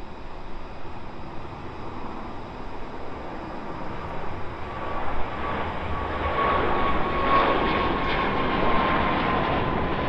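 Airbus A350 jet passing, the rumble and rush of its Rolls-Royce Trent XWB engines growing louder about halfway through, with a steady whine on top.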